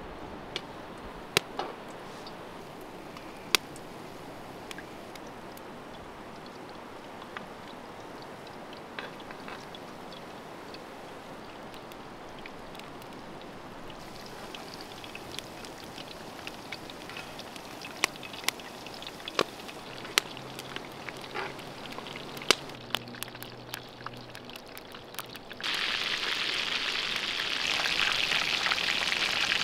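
Battered meat pieces deep-frying in hot oil in a large pot: a steady sizzle with scattered sharp clicks and pops. About 26 s in, the sizzle jumps to a much louder, dense crackling hiss.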